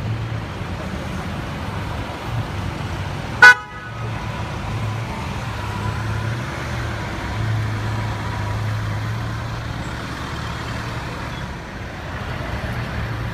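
A single short, very loud car-horn toot about three and a half seconds in. It rises over the low, steady running of slow-moving engines in street traffic.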